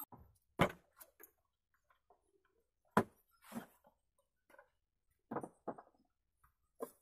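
A few separate sharp knocks and small clatters, as of wooden pieces being handled and set down on a wooden saw table, with near silence between them; the saw motor is not running.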